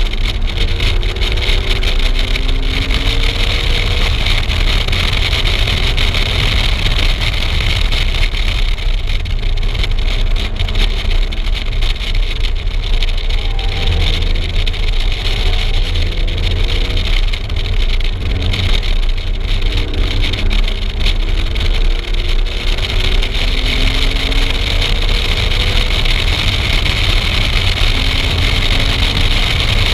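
Car driven hard on a race track: the engine climbs in pitch again and again as it pulls through the gears, under loud wind rush and road rumble on a camera mounted outside the car.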